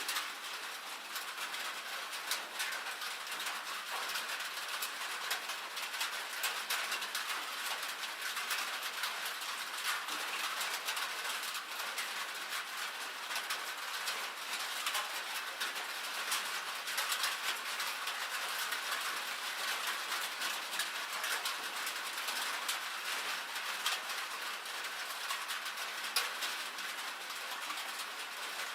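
Rain and hail falling on a metal roof: a steady, dense patter of countless small ticks and taps that holds even, without lulls.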